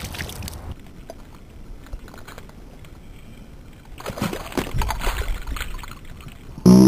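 Water sloshing and splashing with scattered knocks, busier about two-thirds of the way through. Near the end, loud plucked-guitar music starts abruptly and is the loudest sound.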